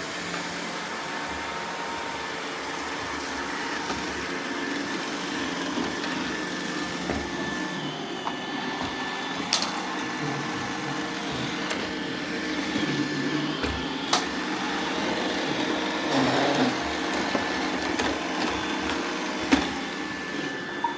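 Roomba robot vacuums (870, 692 and 620) running together, a steady whir of motors and brushes with a faint high tone over it. A few sharp clicks come through, at about ten, fourteen and nineteen seconds in.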